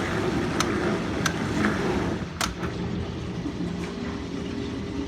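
Whirlpool dishwasher running just after being started, filling with water: a steady, loud low noise with a faint hum. A few sharp clicks sound about half a second, a second and a quarter, and two and a half seconds in.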